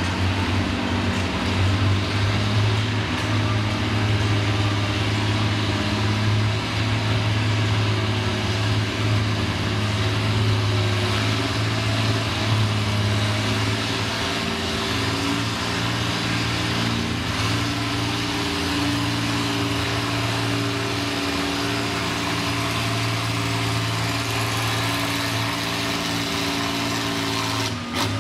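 Antique farm tractor's engine running steadily under load at a nearly constant pitch as it pulls a weight-transfer sled at low speed.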